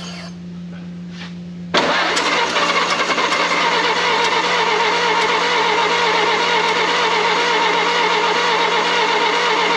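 1932 Ford Model B four-cylinder flathead engine on a starting attempt. A loud, steady mechanical run cuts in suddenly about two seconds in and holds steady to the end, while the engine is troubled by a fuel delivery problem.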